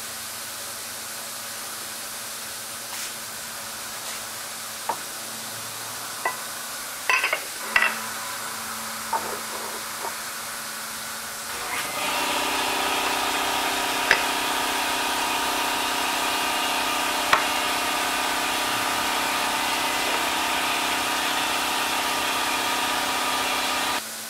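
Short metal clinks and knocks as a wide aluminum plate is handled and set into a horizontal bandsaw's vise, over a faint steady hiss. About halfway through, a louder steady machine hum with several pitches starts, then cuts off suddenly near the end.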